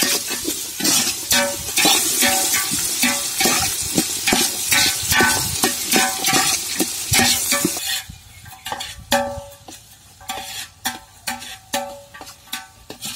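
Metal ladle stirring and scraping sliced shallots, garlic and curry leaves frying in oil in a metal pot, the oil sizzling under repeated ringing clinks and scrapes of the ladle against the pot. About two-thirds through the sizzle falls away, leaving separate ringing scrapes and taps.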